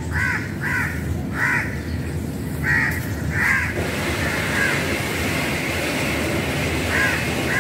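Crows cawing: a quick series of short, harsh caws, about two a second, which stop about halfway through. A steady background hiss follows, with a couple of fainter caws near the end.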